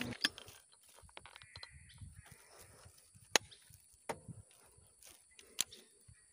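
A few sharp clicks and knocks from an air rifle being handled and aimed, the loudest one about three seconds in. Faint short bird calls sound in the background.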